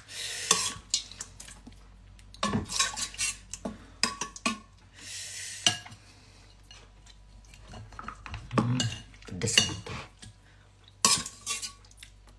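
Metal spoon clinking and scraping against a ceramic bowl while stirring soup, in irregular clusters of clinks.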